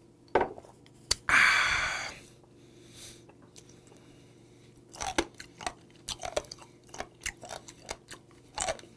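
A glass clicks down on the table, then comes a loud breathy exhale after a shot of liquor. From about five seconds in comes close-miked chewing of mideodeok (stalked sea squirt), a run of short wet clicks and smacks several times a second.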